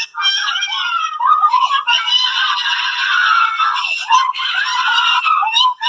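A boy crying and screaming in long, loud, high-pitched wails that bend up and down, with short breaks for breath just after the start and near the end. It sounds thin, with no low end, like a played-back recording.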